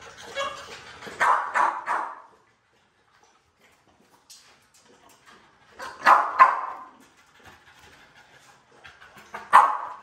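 Dogs barking in short bursts: three quick barks about a second in, two more around six seconds, and a single bark near the end.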